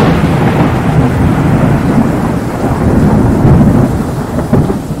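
Thunder sound effect: a loud, continuous rumble of thunder with a rain-like hiss, easing off near the end with a few sharp crackles.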